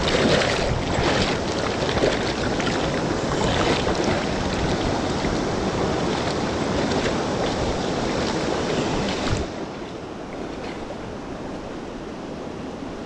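Rushing river current: a steady wash of fast-flowing water that drops suddenly to a quieter level about nine seconds in.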